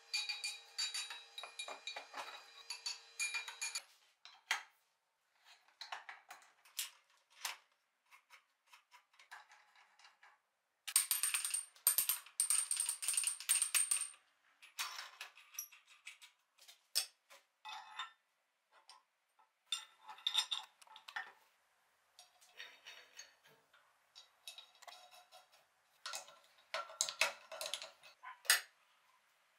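Steel vise parts and hand tools clinking and knocking: nuts, bolts, the vise handle and an adjustable wrench handled and set down on metal and wood as a blacksmith's leg vise is bolted to its stand. A harsh scraping noise lasts about three seconds near the middle, and a run of heavier clanks comes near the end.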